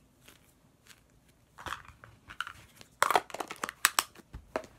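Slime being squished and pulled apart between the hands, with soft squelches and then, about three seconds in, a quick run of crackling pops.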